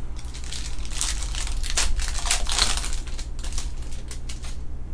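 Wrapper of a trading-card pack being torn open and crinkled in the hands: a dense run of sharp crackles that starts about half a second in and stops shortly before the end.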